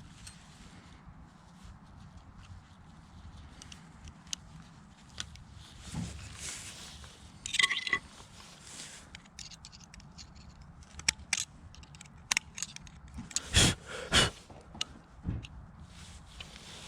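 Hand tools and metal parts being handled during motorcycle front-end work: scattered clicks and scrapes, a ringing metal clink about seven seconds in, and two louder knocks just after the middle.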